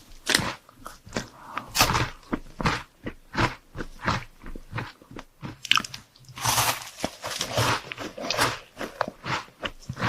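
Person biting and chewing crunchy chocolate sweets: a quick, uneven run of sharp crunches, thickest about six and a half seconds in.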